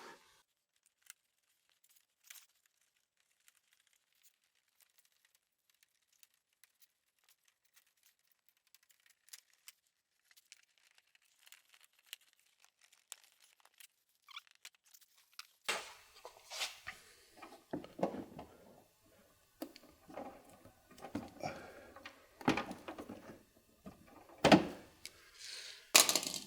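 Trim being worked by hand onto a cut edge. At first only faint scattered clicks; from a little past halfway there are frequent irregular taps, clicks and scuffing, with a few sharper knocks near the end.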